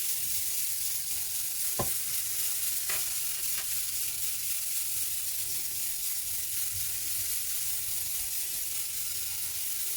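Thin crepe batter sizzling steadily as it is poured through a jalar mould onto a hot griddle greased with oil and ghee, with a couple of light clicks a few seconds in.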